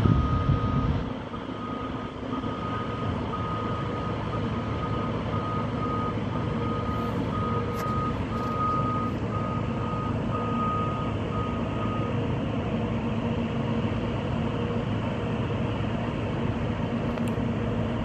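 Reversing alarm of a construction vehicle beeping steadily, a little faster than once a second, then stopping about two-thirds of the way through. Under it runs the steady low rumble of heavy machinery engines at the worksite, louder for the first second.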